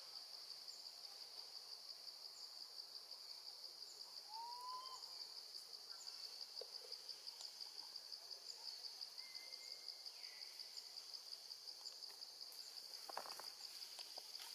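Steady high-pitched, fast-pulsing insect chorus, with a single short rising-and-falling call about four seconds in and a few soft clicks near the end.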